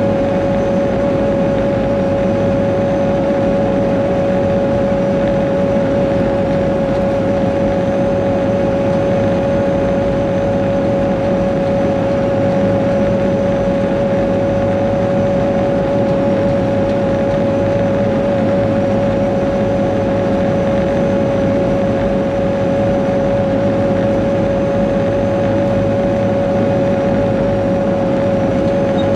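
Caterpillar 140G motor grader's six-cylinder diesel engine running at a steady speed while the grader travels along the road, heard from inside the cab, with a steady whine over a low rumble.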